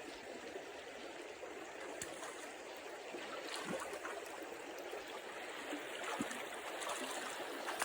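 Small mountain river running shallow and steady, a continuous rush and ripple of water, with a few faint ticks.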